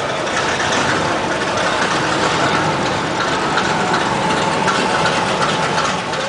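Engines of classic cars idling as they creep past in a slow street cruise, a steady mixed engine noise with no break.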